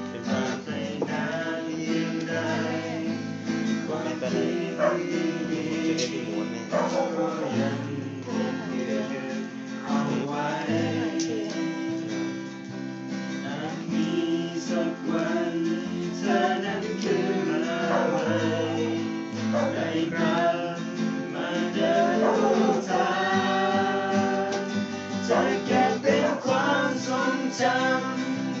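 Music led by a strummed acoustic guitar, playing steadily throughout.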